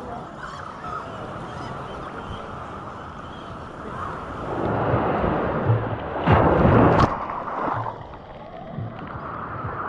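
Shallow seawater sloshing and lapping around a camera held at the surface. About halfway through it swells into a louder splashing rush of water, then settles again.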